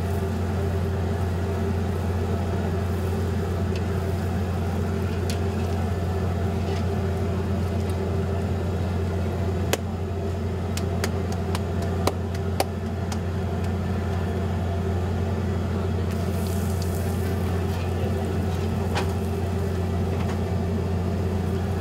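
Bhature deep-frying in a large kadai of hot oil, under a steady low hum that is the loudest sound throughout. A few sharp clicks come about halfway through.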